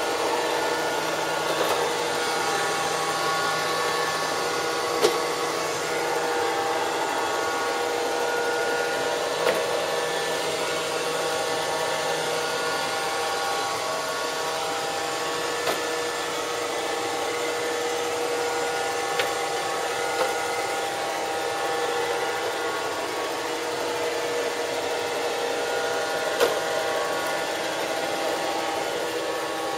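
Robot vacuum cleaner running, a steady motor and brush hum with several held tones. Sharp knocks come every few seconds as it bumps into chair and desk legs.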